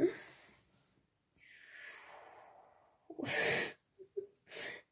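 A person breathing out between remarks: a soft, drawn-out sigh, then two short, louder breathy puffs in the second half. A brief sharp sound is heard at the very start.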